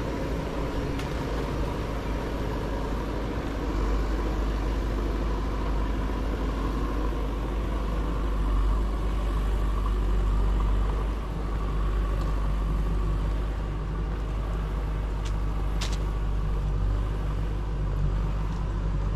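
Motor vehicle engine running steadily with a low, even hum.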